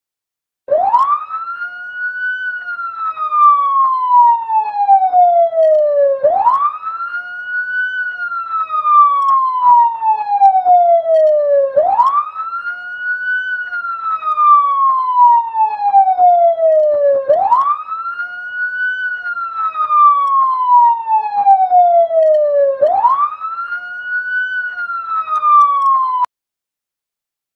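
Police siren sounding a slow wail: the pitch rises quickly, then falls slowly over about four seconds, repeating five times at about five and a half seconds per cycle. It starts just under a second in and cuts off abruptly near the end.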